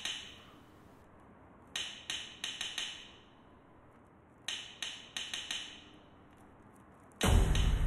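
Sparse score percussion: clusters of four or five sharp, ringing clinks, about two and a half seconds apart. Loud background music with a deep low pulse cuts in near the end.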